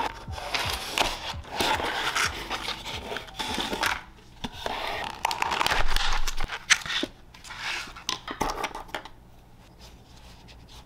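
A cardboard box is cut open and handled, with scraping and rustling, and then a clear plastic packaging sleeve crackles and rustles in the hands. The handling noise dies away about nine seconds in.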